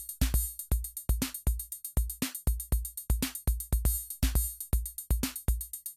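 Drum-machine music with a steady beat of deep kick drums and sharp hi-hat clicks, and a short tone about once a second.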